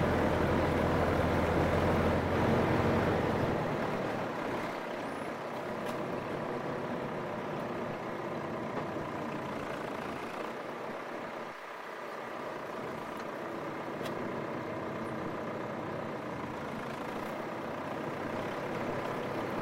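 Ursus C-392 tractor's diesel engine running steadily under load while pulling a disc harrow. Its note is fullest at first, then drops a little and loses its lowest notes about three seconds in, and comes back up near the end.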